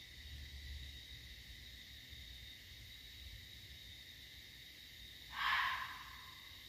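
An unidentified animal gives one harsh, hissing call lasting about a second, starting suddenly a little after five seconds in and trailing off.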